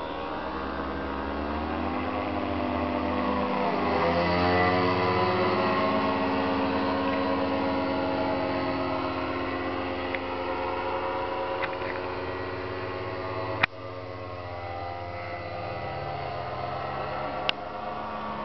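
Powered paraglider trike's engine and caged propeller droning as it flies past low overhead, growing louder and dropping in pitch as it passes about four seconds in, then slowly fading. Two sharp clicks, one about two-thirds of the way through and one near the end.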